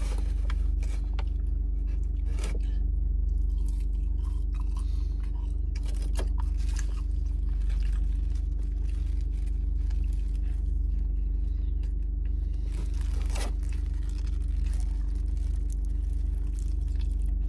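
A person biting into and chewing a burger, with its paper wrapper crinkling in scattered crackles, over the steady low hum of a car engine idling.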